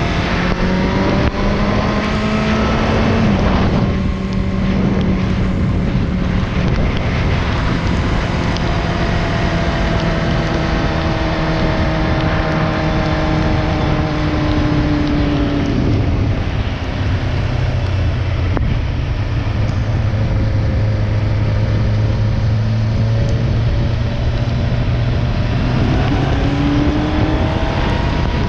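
Motorcycle engine under way, its note climbing as it accelerates, with a gear change about three and a half seconds in. It then holds steady, drops about sixteen seconds in, and climbs again near the end, over a constant rush of wind and road noise.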